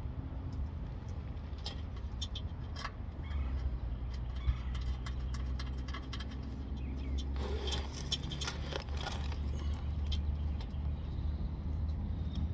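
Low, steady vehicle rumble that grows stronger a few seconds in, with scattered light metallic clicks and rattles from handling bolts and tools under the car, busiest in the middle.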